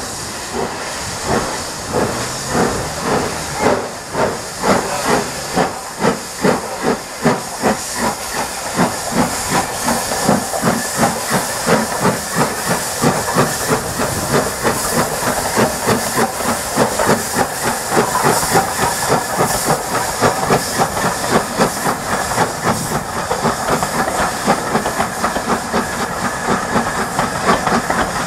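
GNR N2 class 0-6-2 tank steam locomotive No. 1744 working a train away: sharp chuffing exhaust beats that quicken from about one a second to several a second, over a steady hiss of steam.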